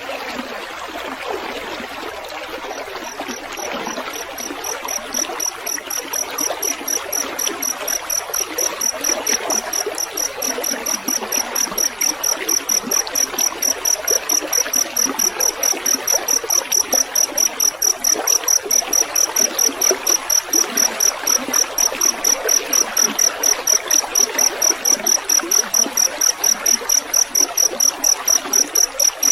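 A field cricket chirps in a steady, even rhythm of about two to three chirps a second, over a continuous trickle of running water. The cricket comes in about three seconds in and grows louder.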